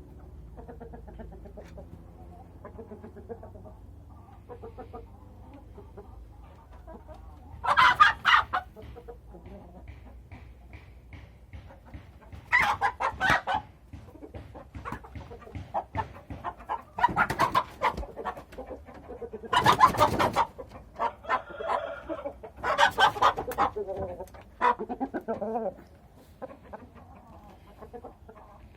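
Chickens, a rooster and hens, clucking and calling. About five loud outbursts of a second or so stand out over the steady low clucking.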